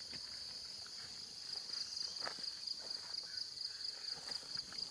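Steady, high-pitched insect chorus in tropical forest, with a few faint rustles and snaps.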